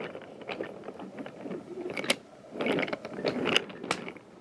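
Wooden toy railway trucks rolling and rattling along wooden track as they are pushed over a hill piece, with a few sharp clicks.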